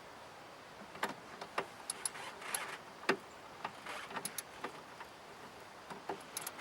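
Scattered light metallic clicks and clinks at irregular intervals, from hand tools (ratchet and socket) being worked on and around a car battery's terminal clamps.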